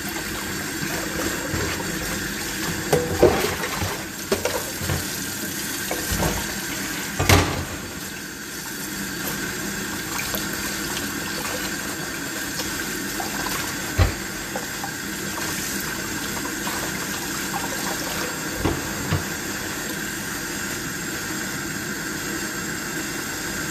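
Kitchen tap running steadily into a plastic basin of water in a stainless steel sink while salted fish is rinsed by hand under the stream, with a few short knocks, the loudest about seven seconds in.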